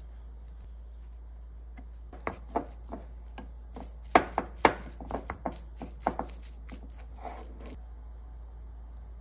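Wooden spoon knocking and scraping against a ceramic bowl while stirring a crab stick and mayonnaise mixture: a run of irregular clacks that starts about two seconds in, is loudest around the middle, and stops a little before the end.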